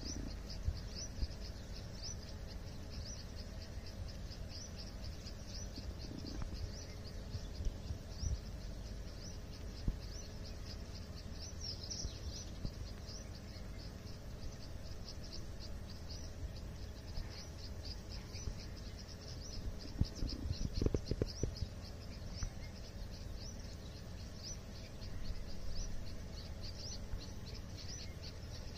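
Outdoor ambience of short, high-pitched chirps repeating steadily about three times a second over a low rumble, with a brief cluster of soft low knocks about twenty seconds in.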